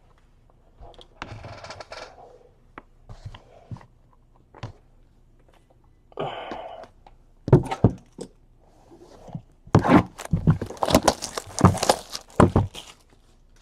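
Trading card packaging being opened and handled: wrapper tearing and crinkling, with knocks, clicks and scrapes. It starts with scattered rustles and gets busier and louder in the last few seconds.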